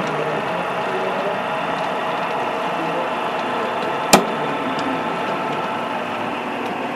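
Diesel engine sound from a model locomotive's sound decoder, running steadily as the model freight train moves. A single sharp click about four seconds in.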